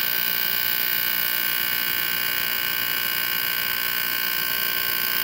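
Val6 heater's electronic alarm buzzer sounding one continuous high-pitched tone, cutting off abruptly near the end.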